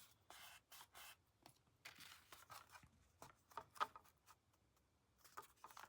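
Faint, irregular rustles and taps of cardstock paper being handled and pressed down by hand.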